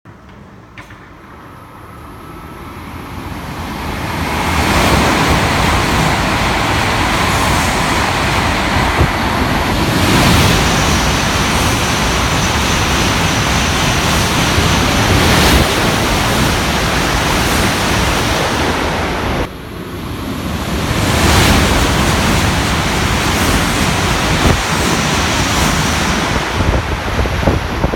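Tohoku Shinkansen bullet train passing through a station at high speed: a rushing roar of air and rail noise that swells over several seconds and stays loud, with wind buffeting the microphone. About two-thirds of the way through it drops suddenly, then builds again with another pass.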